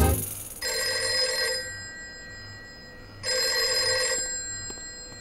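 Desk telephone ringing twice, each ring about a second long with a pause between: an incoming call.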